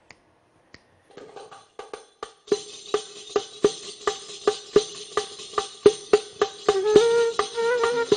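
Riq, an Arabic frame tambourine with brass jingles, starts softly and builds into a steady rhythmic beat of sharp jingling strikes. Near the end a ney flute comes in with a held note.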